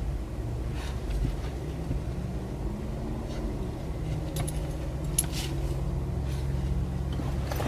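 Steady car engine and road rumble heard from inside the cabin, with a few faint light jingling clicks.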